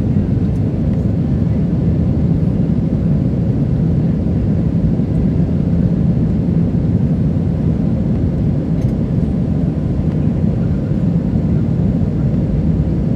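Steady low drone of an Airbus A320's IAE V2500 engines and rushing air, heard inside the passenger cabin during the climb after takeoff.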